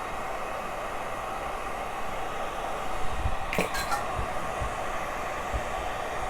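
Hair dryer blowing steadily, with a few soft handling knocks from about halfway through.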